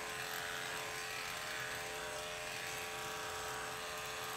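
Andis electric dog clippers running steadily with an even hum while trimming a dog's leg hair.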